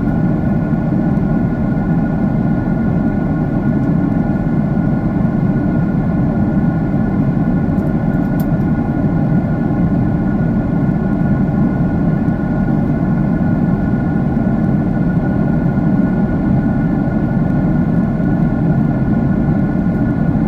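Steady roar of a jet airliner's engines heard inside the passenger cabin, a deep even rumble with a faint steady hum above it and no change in level.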